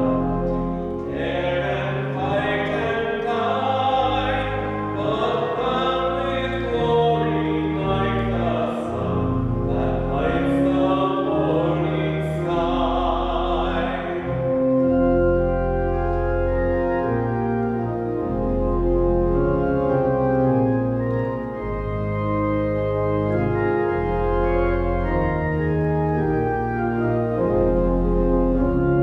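Closing hymn: voices singing with organ accompaniment. The singing stops about halfway through and the organ plays on alone with long held chords.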